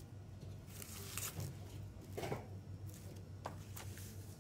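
Shrink-wrapped plastic CD jewel case handled and turned over on crumpled paper: a few brief rustles and light taps, over a low steady hum.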